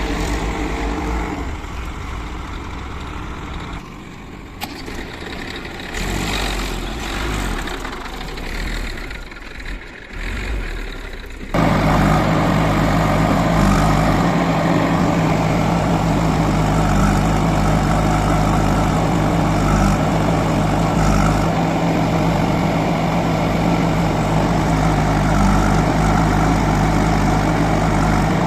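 Heavy diesel engine running, uneven and fainter at first, then suddenly much louder and steady about a third of the way through.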